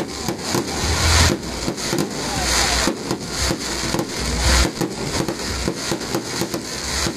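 Fireworks crackling and popping in quick, irregular succession as sparks rise and small shells burst, with a few low thuds among them.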